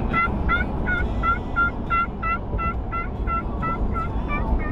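A turkey call worked in a steady run of about fourteen short yelps, roughly three a second, each note dropping in pitch, over the low road rumble inside a moving truck's cab.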